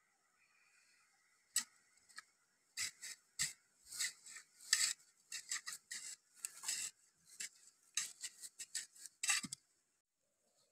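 A long digging rod stabbing and scraping into dry, crumbly soil in quick, irregular strokes, a few a second, stopping shortly before the end.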